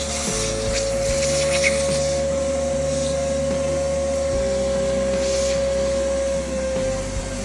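Small electric motor running steadily with a constant whine, the sound of a vacuum-type appliance used in cleaning the HVAC blower.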